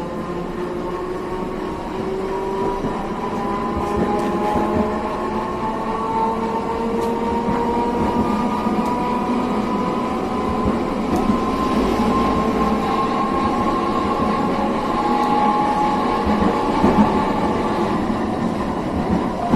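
Iyotetsu streetcar heard from inside the car as it runs along street track: a steady running noise with a whine from the drive that rises slowly in pitch as the tram picks up speed.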